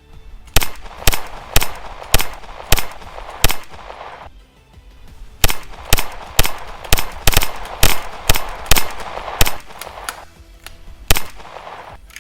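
Series of sharp pistol-shot cracks, each with a ringing tail: six about half a second apart, a short pause, then a faster run of about a dozen, and one more shot near the end. Faint music plays underneath.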